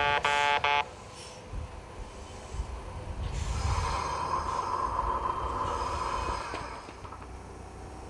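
The station's in-station level crossing bell ringing its rapid repeated chimes, about four a second, then cutting off about a second in. A two-car Kintetsu local train then pulls into the platform and brakes to a stop, with a steady squeal for a few seconds from about three seconds in.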